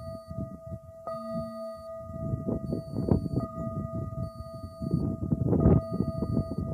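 A metal singing bowl struck once about a second in, ringing on with a steady mid-pitched tone and a couple of higher overtones. Gusty low rumbling from wind on the microphone runs under it.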